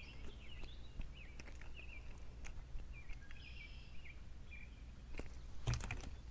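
Faint birdsong of short chirps and warbling phrases, with scattered light clicks from handling a crappie and its jig, and a few louder knocks near the end.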